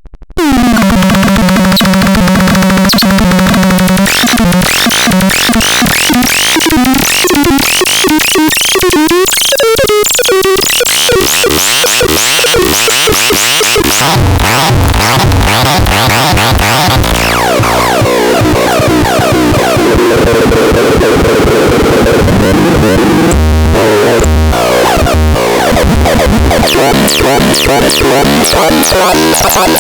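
Loud electronic synthesized sounds starting about half a second in, cycling through held tones, pitch glides and rapid warbling sweeps.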